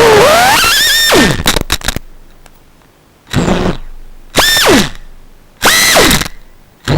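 FPV drone motors whining, rising in pitch, then cutting out with a few sharp clicks about a second in. Three short throttle blips follow, each whine quickly rising and falling away, before the motors spin up again at the very end.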